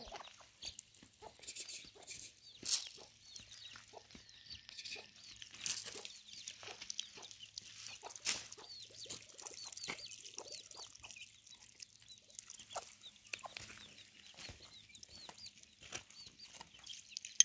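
Domestic chicks peeping over and over in short, high chirps, with a hen's occasional low clucks and scattered light clicks as they peck at feed on the ground.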